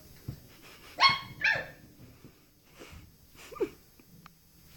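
A puppy barking twice in quick succession with high-pitched yaps, then a shorter call falling in pitch near the end.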